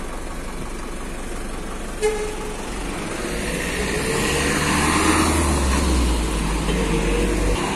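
Engine and road noise heard from inside a moving bus, swelling to a peak midway as a heavy vehicle overtakes close alongside; the deep rumble drops away suddenly near the end. A short pitched tone sounds about two seconds in.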